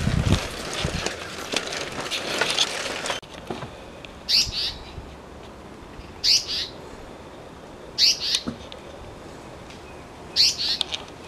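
Rustling and handling noise while walking, cutting off about three seconds in; then four short high chirping animal calls, about two seconds apart.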